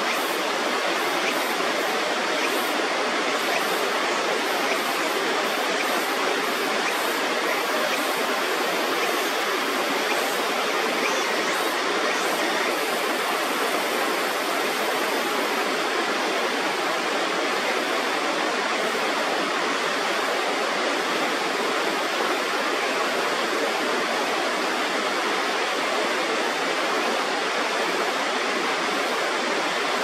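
Loud, steady rush of river water pouring over a weir, running at full flow after a typhoon.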